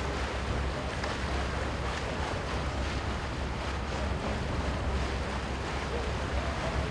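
Steady harbour ambience: wind buffeting the microphone over a low rumble and the wash of water, with no distinct events.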